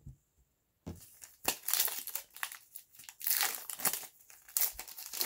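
Foil wrapper of a 2020 Bowman 1st Edition baseball card pack crinkling and tearing as it is pulled open by hand, in irregular crackles starting about a second in.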